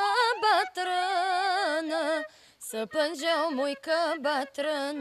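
A young woman singing a folk melody solo, her voice wavering and ornamented on each held note, with a short breath break about halfway through.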